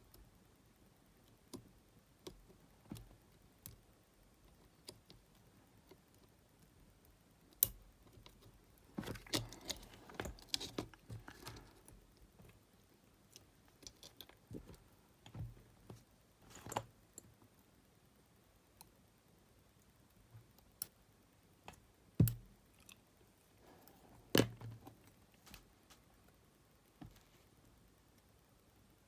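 Scattered small clicks and rattles of the metal-and-plastic tape mechanism of a Sony TCM-450 cassette recorder being handled and fitted back together. A busy patch of handling noise comes about a third of the way in, and a few sharp single clicks follow later.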